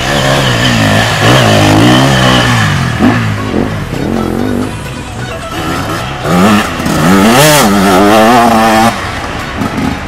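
Enduro dirt bikes ridden hard past on a dirt track, engines revving up and down as they accelerate and shift. One bike passes in the first few seconds and a second passes, loudest, about six to nine seconds in.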